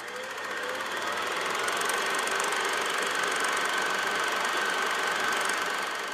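A rapid, steady mechanical clatter with a thin high whine running through it. It swells in over the first two seconds and fades out at the end.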